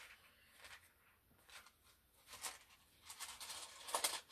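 Rune tiles clicking against each other inside a small cloth pouch as a hand rummages to draw one. A few soft isolated clicks give way, about three seconds in, to a quicker, louder run of clicking and rustling.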